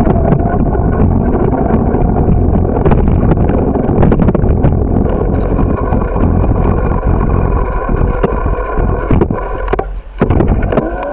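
Wind rushing over the microphone of a camera on a moving bicycle, with the rumble and rattle of the bike rolling over pavement. The noise drops away briefly near the end.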